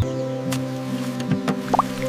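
Background music with held chords, with a few short plinks and a quick rising blip near the end.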